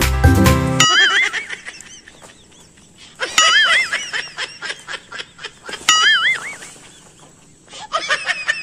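Background music that stops about a second in, then four short warbling fowl-like calls about two and a half seconds apart, with light clicking and rustling between them.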